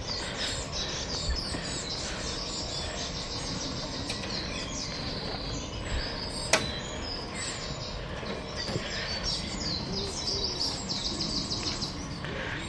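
Small birds chirping in repeated quick series over steady outdoor background noise, with one sharp click about six and a half seconds in.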